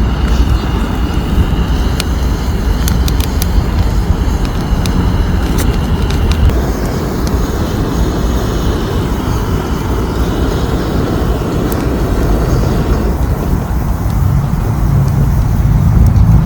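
Wood fire burning in a small camping fire pit: a loud, steady rumble with scattered sharp crackles, most of them in the first half.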